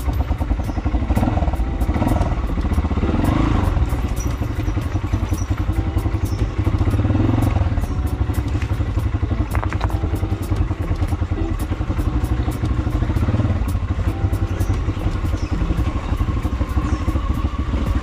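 Small motorcycle engine running steadily while riding over a rough, rocky dirt track, with frequent clicks and knocks from the bike jolting over loose stones.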